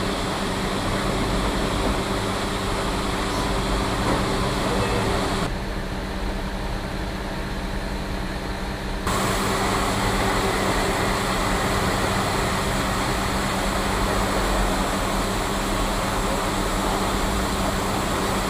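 Diesel engine of a concrete mixer truck running steadily while it pours, with a steady hum; it drops quieter for a few seconds in the middle, then picks back up.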